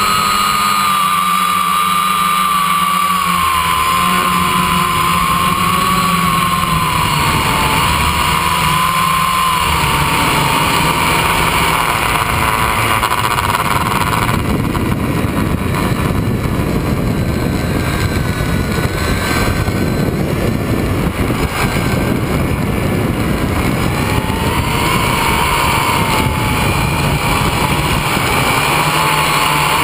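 Quadcopter's electric motors and propellers whining, heard from a camera mounted on the frame, the pitch drifting up and down as the throttle changes. About halfway through, the whine fades under a rougher rushing noise, then comes back near the end.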